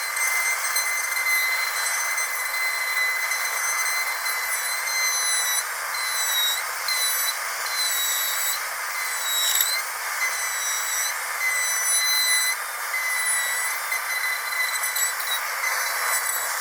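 Dentist's drill whining at a steady high pitch over a hiss, its pitch dipping briefly several times.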